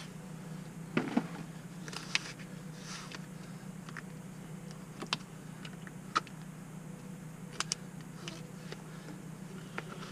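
Scattered light clicks and knocks of a prosthetic leg being handled and fitted, the two loudest about a second in, over a steady low hum.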